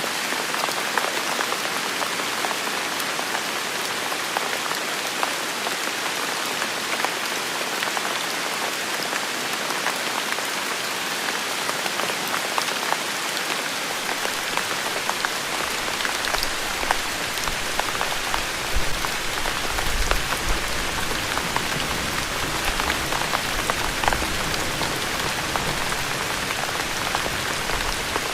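Steady rain falling on hard surfaces, an even hiss dotted with many individual drips and splashes. About halfway through a low rumble comes in underneath and stays.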